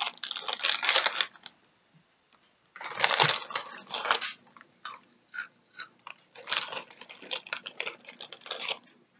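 Plastic snack bag of salted pretzel sticks crinkling as it is worked open by hand, in three bursts of rustling with small clicks and crackles in between.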